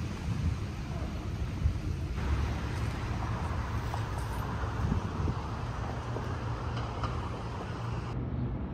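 Steady low background rumble with a hiss above it; the hiss grows louder about two seconds in, and its higher part drops away abruptly near the end.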